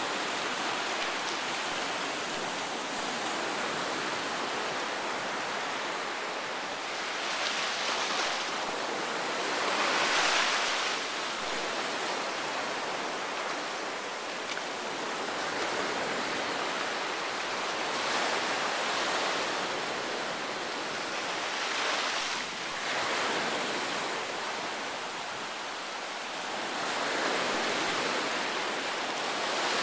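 Small surf washing up and back over a sandy beach: a steady hiss of water that swells several times as waves run in over the sand.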